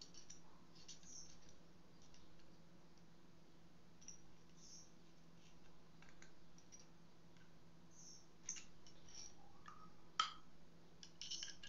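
Small metal parts of a PCP air rifle's valve clicking and tapping faintly as they are handled and fitted together by hand, with a sharper click about ten seconds in and a few quick clicks near the end.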